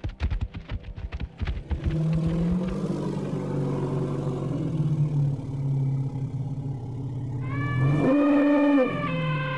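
Cartoon woolly mammoth sound effects: a rapid run of heavy stomping thuds for about two seconds, then a long, low, steady rumbling growl, and a trumpeting call near the end.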